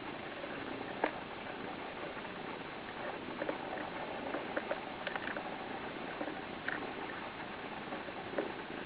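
Kitten purring steadily close to the microphone, with a few small clicks scattered through it.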